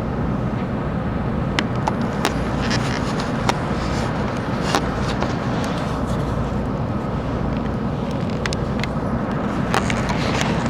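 Running noise of a 700-series Hikari Rail Star shinkansen train heard from inside the carriage: a steady low rumble with scattered faint clicks.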